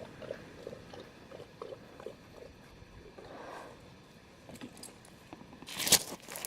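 A German shepherd lapping water, soft quick laps about three a second for the first couple of seconds. A loud crunch comes near the end.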